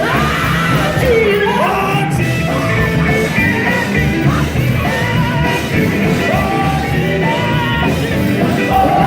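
Live gospel quartet singing with band accompaniment: a lead voice shouting and singing in rising and falling lines over the full band, with held backing notes.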